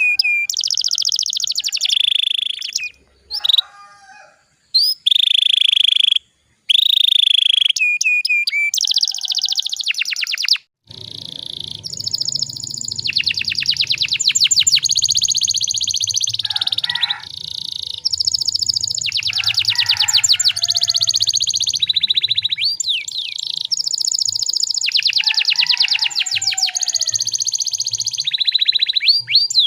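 Domestic canary singing: clear whistled notes alternating with fast rattling trills, broken by a few abrupt cuts in the first eleven seconds. After that a faint steady hum runs beneath the song.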